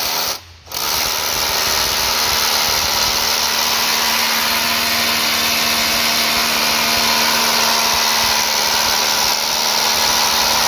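Makita DHR182 18V brushless rotary hammer drilling into a concrete block with its dust-extraction attachment fitted. It stops for a moment within the first second, then runs steadily.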